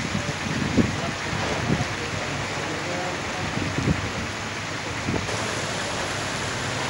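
Steady monsoon rain falling, a dense even hiss of rain on the ground and trees.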